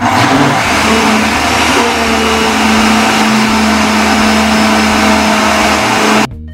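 Countertop blender running at speed, blending a liquid pudding batter: a loud, steady whir with a hum underneath, cutting off suddenly near the end.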